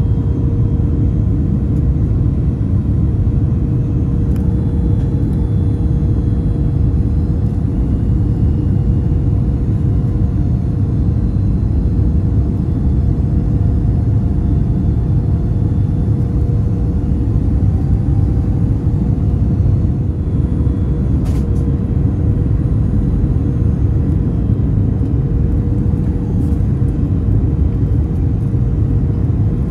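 Passenger jet cabin noise: the steady, loud rumble of the engines and airflow heard from inside the plane, with a constant hum.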